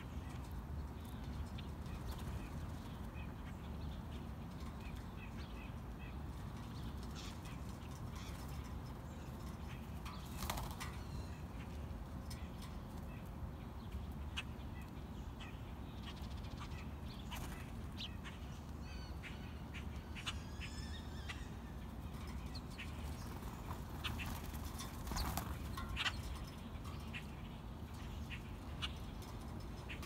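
Birds' wings flapping as a blue jay and a crow come and go at a ledge of peanuts, with a few short sharp taps. Under it runs a steady low rumble, with scattered short bird chirps.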